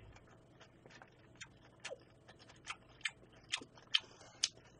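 Close-miked eating sounds: an irregular run of short, soft clicks and smacks from chewing and from a metal spoon working in a stainless steel bowl.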